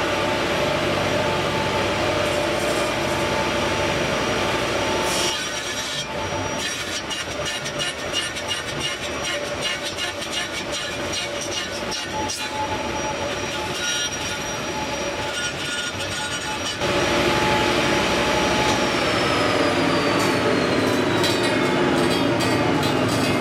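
A table saw running and cutting gates into a wooden drum hoop pushed through on a sled, with a steady whine. The sound drops a little about five seconds in, with rapid fine ticking, and comes back louder about seventeen seconds in; near the end a high tone slides slowly down.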